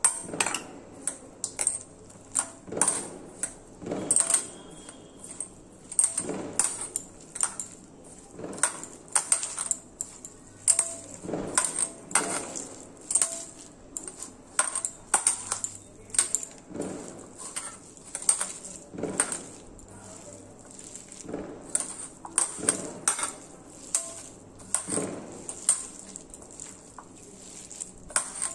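A hand mixing and kneading a chicken chop mixture in a stainless steel bowl: irregular sharp metallic clinks against the bowl, about one a second, each ringing briefly.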